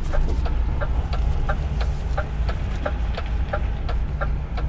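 DAF truck's diesel engine running at low revs, heard inside the cab, with a steady rhythmic ticking about three times a second.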